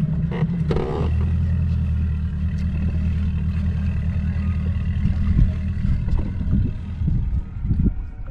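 Boat motor running steadily at low speed, a continuous low hum, with a short clatter about a second in and irregular low thumps in the second half.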